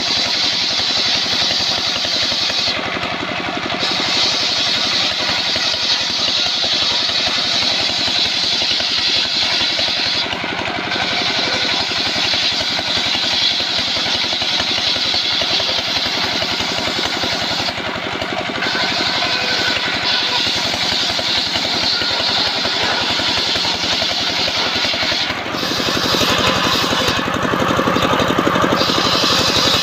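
Engine-driven circular saw bench ripping sengon (albasia) wood into rafters: the saw's high cutting noise rides over the steady running of its stationary engine. The cutting noise dips briefly about every seven seconds as one pass ends and the next begins, and near the end the sound turns lower and fuller as the blade cuts into a round log.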